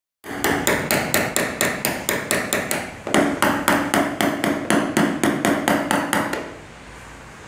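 Small hammer tapping a knockdown punch held against a car roof, about five light, even taps a second in two runs with a short break about three seconds in, stopping about a second before the end. This is paintless dent repair knockdown work, tapping the metal around the dent back down.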